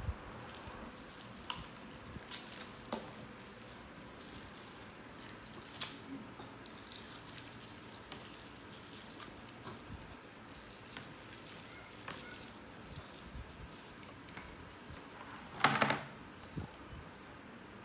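Light handling noises: a drinking straw's plastic wrapper being crinkled and torn open, with scattered small taps and clicks and one louder rustle near the end.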